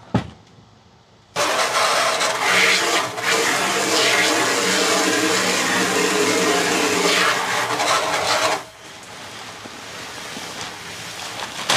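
Water from a garden hose pouring into a plastic barrel as it is filled. It follows a short knock at the very start, comes on suddenly about a second in as a loud steady rush, and drops abruptly to a softer flow about three seconds before the end.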